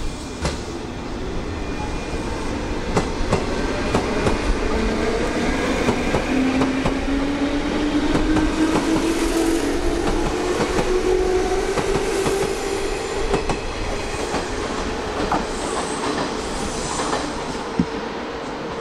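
JR West 201 series electric train pulling away and accelerating. Its drive whine rises steadily in pitch over several seconds, over the rumble of the train and the clicking of wheels over rail joints.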